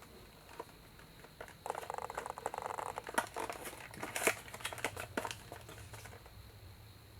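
Packaging of a small boxed scale model being opened by hand: a second or so of crinkling wrapping, then a run of sharp clicks and taps.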